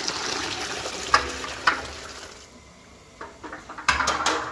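Boiled chickpeas and their hot water pouring and splashing from a metal pot into a large degchi of tadka. There are two sharp metal knocks between one and two seconds in, and another pour with knocks near the end.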